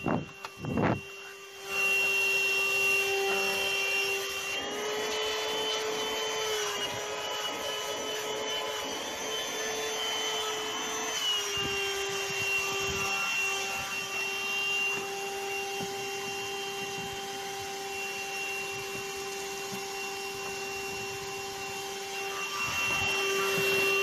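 A 12-volt handheld car vacuum cleaner (RNG Eko Green, 106 W, wet/dry) runs with a long crevice nozzle, its motor giving a steady whine. The pitch shifts slightly a few times as the nozzle is worked into the gaps between the car seats. There is a brief dip with a couple of clicks in the first two seconds.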